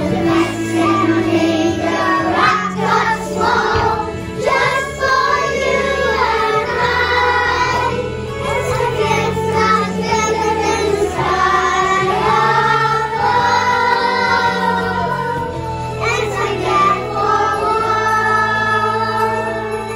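Background music: a children's choir singing a song over an instrumental backing with held bass notes.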